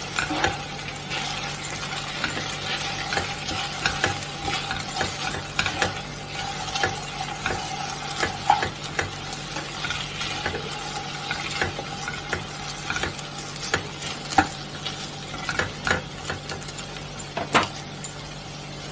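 Strips of taro root (arbi) sizzling in a nonstick kadai while a spatula stirs and tosses them, giving repeated scrapes and taps against the pan over a steady frying hiss. The stirring stops near the end and only the sizzle remains.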